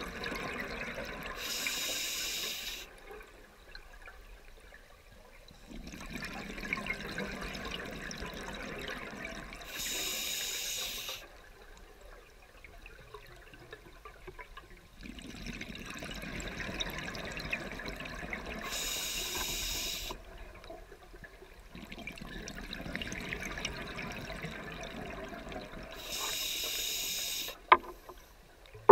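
Scuba diver breathing through a regulator underwater: four slow breaths, each a short hissing inhale followed by a longer rush of exhaled bubbles. A sharp click sounds near the end.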